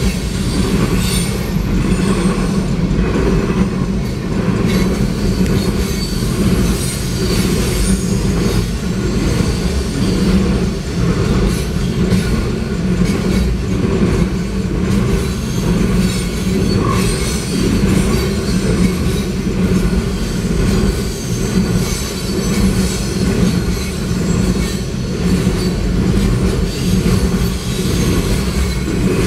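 Freight train cars (tank cars and covered hoppers) rolling past close by: a loud, steady rumble of steel wheels on rail with clacking over the joints and, now and then, a thin high wheel squeal.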